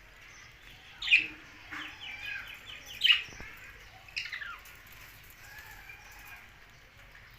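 Budgerigars calling: three sharp, loud squawks, about a second in, at three seconds and at four seconds, with a quick run of clicking chatter between the first two and softer chirps afterwards.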